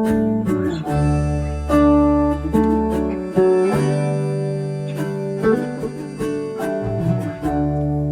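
Background music: plucked acoustic guitar with a bass line, picked notes over held chords at an easy pace.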